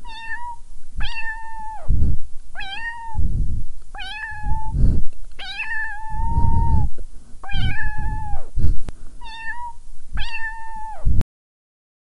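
Tabby cat meowing repeatedly, about eight drawn-out meows, some short and some over a second long, with low rumbling noise between them. The sound cuts off abruptly near the end.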